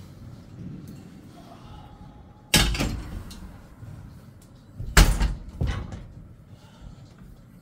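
Two loud bangs about two and a half seconds apart, each dying away quickly; the second is the louder, with a smaller knock right after it.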